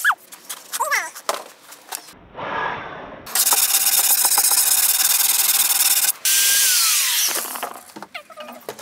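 A handheld power tool running against wood for a few seconds mid-way, a steady noisy drone whose motor tone falls away as it winds down; scattered clicks and knocks before and after.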